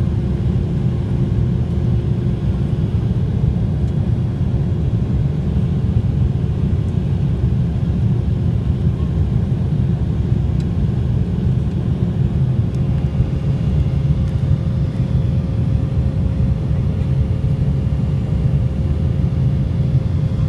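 Cabin noise of an Embraer 190 climbing out after take-off: its GE CF34-10E turbofan engines running at climb power, heard from inside the cabin as a steady low rumble with faint steady hums above it.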